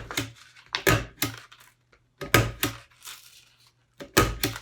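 Hand stapler driving staples through the rim of a paper plate: four sharp clacks about a second or two apart, each with a smaller click after it.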